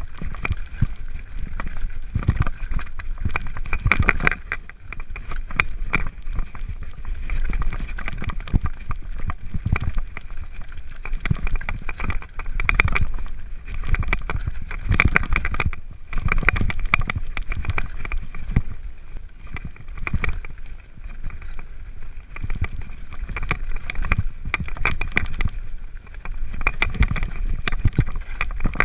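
Mountain bike rattling and clattering down a rocky trail, a dense, irregular run of knocks and clicks from the bike jolting over stones, over a steady low rumble.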